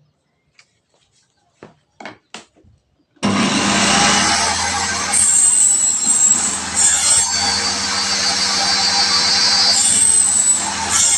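A few light clicks, then about three seconds in a homemade table saw starts suddenly and runs loud and steady with a hum, its blade sawing wood, with a high whine rising twice during the cut.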